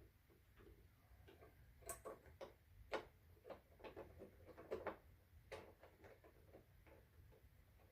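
Faint, irregular clicks and light taps of hands working with small parts and tools, the sharpest about three seconds in and a cluster near the five-second mark.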